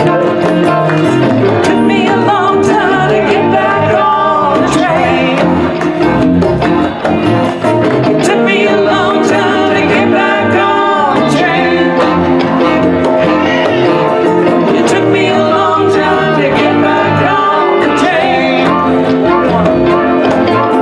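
Live band playing amplified music: electric and acoustic guitars, tenor saxophone, electric bass and congas.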